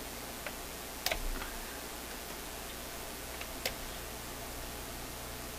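A few scattered light clicks and taps from handling things on a workbench, over a steady low hum and hiss.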